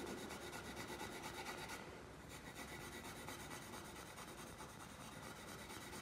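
Pencil shading on drawing paper, a quiet steady scratchy rubbing as graphite is laid on to darken a shadow.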